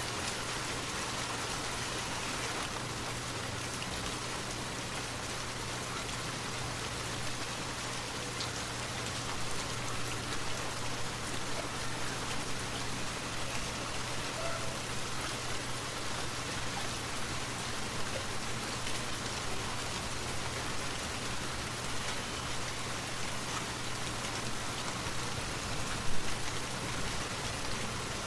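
Forest waterfall: water falling and splashing in a steady, unbroken rush, with a brief louder sound about two seconds before the end.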